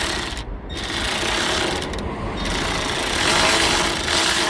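A power wrench running in three bursts of about two seconds each, with short pauses between, as it loosens a strut's upper mounting nut.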